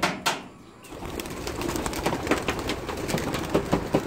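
Racing pigeons flapping and clapping their wings as they take off out of the loft: after a single knock, a dense flurry of wingbeats starts about a second in and grows louder.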